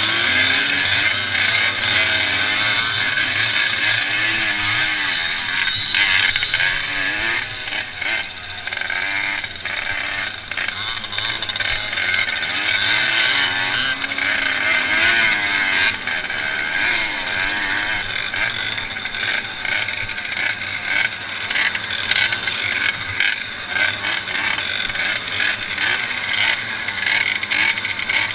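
A crowd of small two-stroke moped engines running together, idling and being blipped up and down in pitch as the riders move off slowly, heard close from the rider's own helmet.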